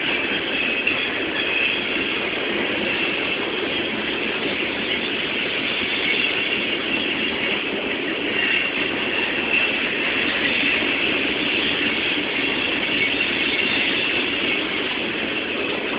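Coal hopper cars of a unit coal train rolling steadily past, a continuous rumble of steel wheels on rail with faint high wheel squeal coming and going.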